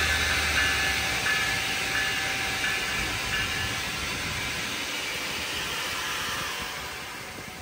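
Passing train's wheels running on the rails, its noise fading steadily as it moves away, with a faint high ringing over the rumble.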